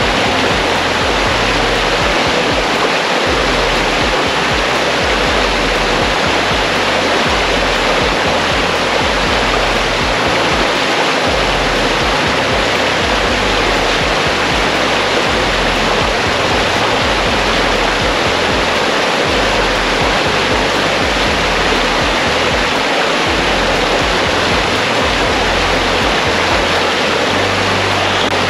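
Steady rush of flowing stream water with no breaks, mixed with background music whose low bass notes change every second or so.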